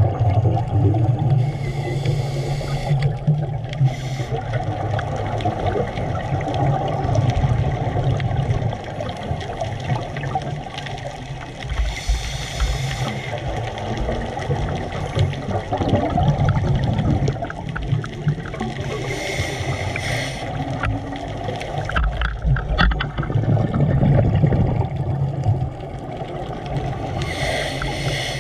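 Scuba diver breathing through a regulator underwater: a short hissing inhale about every eight seconds, between long stretches of bubbling exhale.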